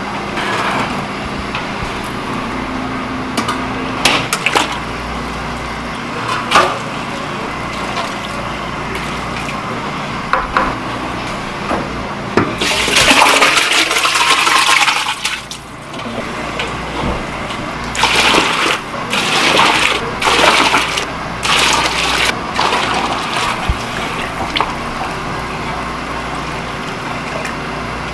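Soup broth ladled and poured with a stainless steel ladle in a large pot: a few sharp clinks of the ladle on metal, then a long splashing pour about halfway through and several shorter pours and splashes after it.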